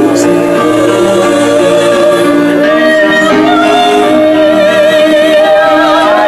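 Loud music with a singing voice holding long notes with vibrato.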